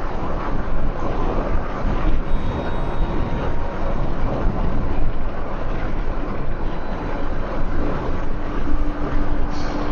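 Steady road and engine noise inside a moving car, with a faint steady hum joining about five seconds in.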